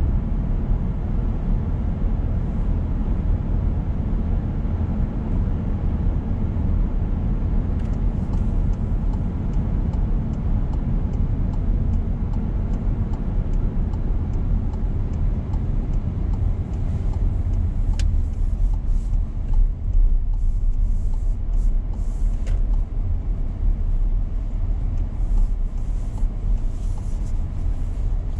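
A car driving: a steady low rumble of engine and tyre noise on the road, with faint ticks and a sharper click in the second half.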